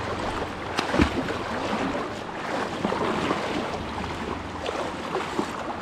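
River water rushing steadily, with a single knock about a second in.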